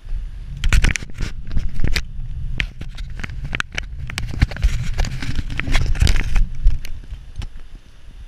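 Mountain bike rolling downhill on a paved lane, rattling and clicking sharply over bumps, with wind rumbling on the microphone. The rattles come thick for most of the stretch and thin out near the end.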